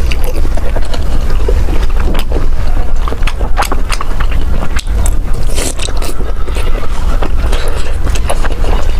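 Close-miked chewing and biting of food, with many short irregular wet clicks, over a steady low rumble.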